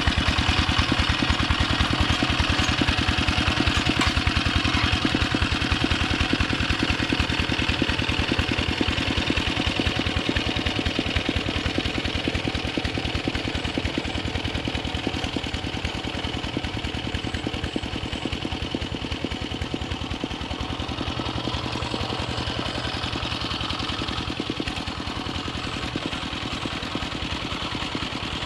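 Yanmar two-wheel hand tractor's single-cylinder diesel engine running steadily while pulling a harrow through flooded paddy mud. It grows slowly fainter as the tractor moves away.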